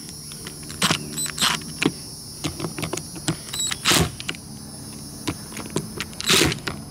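Cordless drill/driver running in short bursts, driving Phillips screws through a chrome cleat's bases into a boat hull, with clicks and light metal rattling between the runs.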